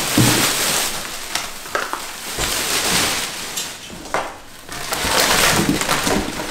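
Clear plastic packaging wrap crinkling and rustling as it is handled and pulled from a cardboard box, in several spells with brief pauses between them.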